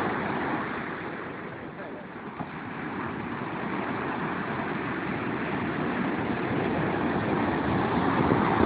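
Surf breaking on a sandy beach: a steady rush of waves and whitewater, easing about two seconds in and building again.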